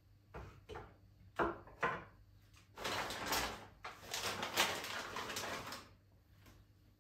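A plastic packet of fresh tagliatelle crinkling as it is handled and emptied, for about three seconds from roughly three seconds in. Before that come a few short clicks and knocks.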